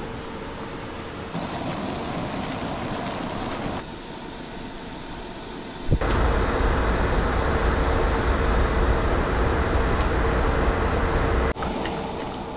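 Electric fan running with a steady hum and a rush of air. About six seconds in the rush turns suddenly louder and deeper, like air blowing across the microphone, and drops back abruptly near the end.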